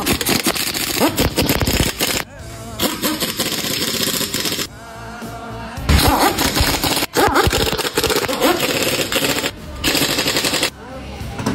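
Four bursts of rapid mechanical rattling, each one to three seconds long, with short pauses between, over a song playing in the background.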